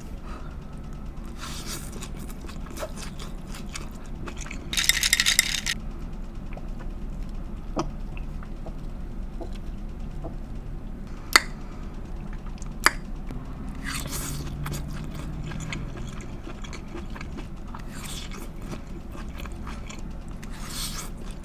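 Close-miked eating of a shrimp and heart-of-palm stir-fry: intermittent chewing and biting, with a louder noisy burst about five seconds in. Two sharp utensil clicks against the dish fall around the middle.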